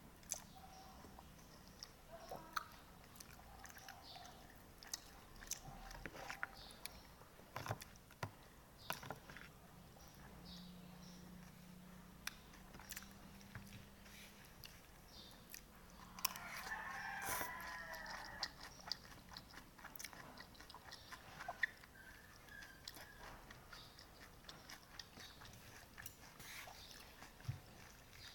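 Close-up eating sounds: soft biting, chewing and slurping of noodles, with scattered small clicks and smacks. About sixteen seconds in, a rooster crows once in the background, a wavering call lasting a couple of seconds.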